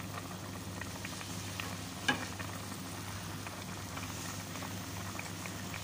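Chicken pieces sizzling and bubbling in a little liquid in an aluminium pot, steady throughout, with faint ticks and one sharp knock about two seconds in.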